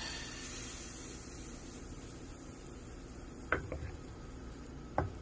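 Pancake batter poured into a hot nonstick frying pan: a sizzle that starts as the batter hits the pan and fades to a low, steady frying hiss. Two short sharp clicks, about three and a half and five seconds in.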